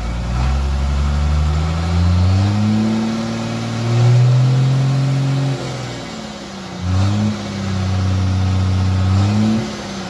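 Isuzu 6BD1-T turbo-diesel inline-six in a dump truck, straight-piped with the muffler cut off, free-revved twice. It climbs slowly to a held high rev that is the loudest part, drops back to idle, then revs up quickly again, holds, and settles back to idle near the end.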